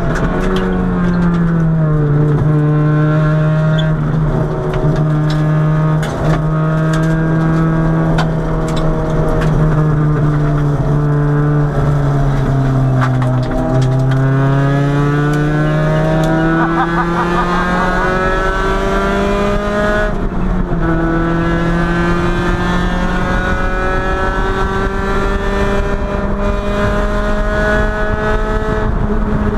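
Honda B20B four-cylinder engine heard from inside the cabin, pulling under load on a track straight. Its pitch sags over the first half, climbs from about halfway, steps down once about two-thirds of the way in, then climbs slowly again.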